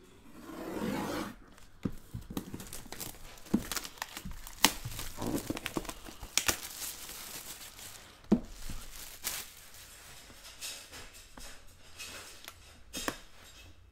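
Plastic shrink-wrap on a cardboard trading-card box being slit with a small knife and pulled off, crinkling and crackling with many irregular sharp clicks.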